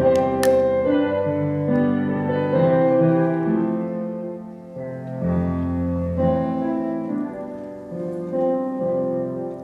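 Keyboard playing the instrumental introduction to a hymn, a slow run of held chords before the singing comes in.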